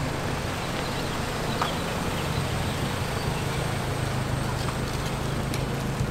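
Tuned Mitsubishi Lancer Evolution X, turbocharged 2.0-litre four-cylinder of about 500 hp, rolling slowly at low revs with a steady low exhaust rumble.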